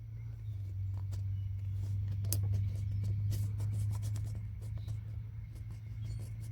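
A carpenter's pencil scratching on a log, with scattered small clicks and ticks, over a steady low hum.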